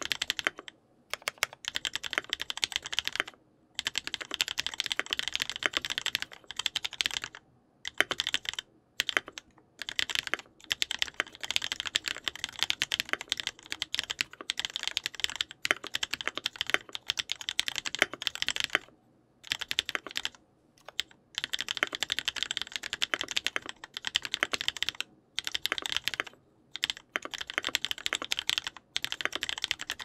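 Fast, continuous typing on a TX EO87 mechanical keyboard with lubed KTT Red Wine switches, 70 g springs, an aluminium plate, foam dampening and pudding keycaps: a rapid stream of key clacks, broken by about a dozen brief pauses.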